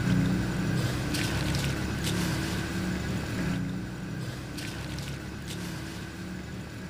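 Mutton stock (yakhni) boiling in a large steel pot, with a steady low rumble, while handfuls of soaked rice are dropped in with a few scattered wet splashes and drips.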